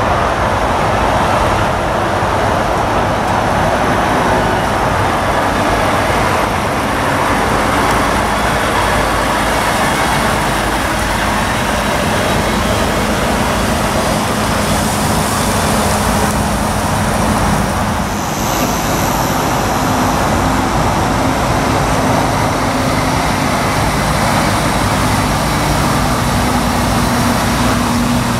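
Diesel engines of articulated lorries running as they pull slowly past, over a steady roar of traffic. A lorry's low engine drone becomes clearer in the second half.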